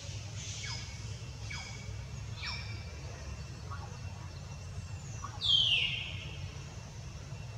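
A series of short, high-pitched animal squeaks, each falling quickly in pitch, then one much louder falling squeal about five and a half seconds in, over a low steady rumble.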